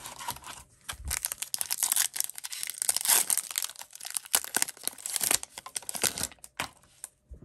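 A foil trading-card pack wrapper being torn open and crinkled: a dense crackling rustle that stops shortly before the end.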